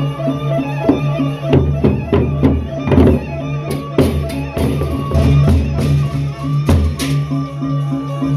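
Lombok gendang beleq ensemble playing: large barrel drums struck with sticks and brass cymbals clashing over a steady, repeating pitched figure. Drum strokes come thick in the middle, with a loud cymbal-like crash near the end.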